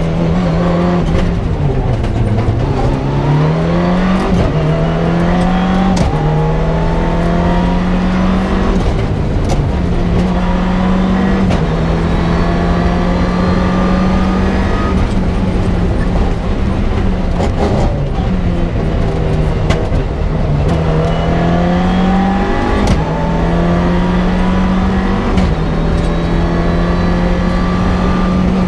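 Mitsubishi Lancer Evo 6 rally car's turbocharged 2.0-litre four-cylinder engine heard from inside the cockpit, driven hard: revs climb and then drop with quick gear changes, over and over, with a dip in revs about two seconds in. A few sharp clicks or knocks cut through now and then.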